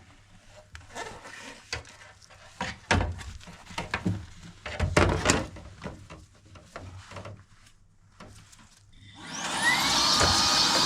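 Scattered light knocks and clicks of handling, then near the end a cordless air-moving tool's motor starts with a rising whine and settles into a loud steady rush of air, as the dust is cleaned out of the fan convector heater.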